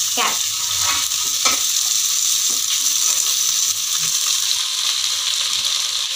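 Chopped vegetables sizzling as they fry in hot oil in an aluminium pot while more are tipped in, a steady sizzle. A few light knocks in the first couple of seconds as the plates of vegetables meet the pot.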